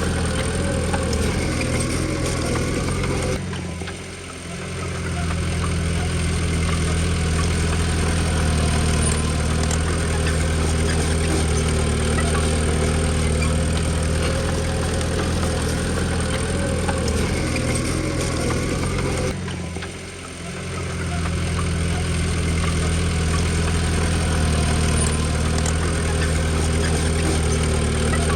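Komatsu D20P bulldozer's diesel engine running steadily. Twice the sound drops off sharply and swells back over about a second and a half.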